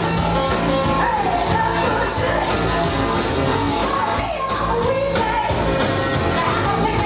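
Loud amplified music with a singing voice over it, running steadily without a break.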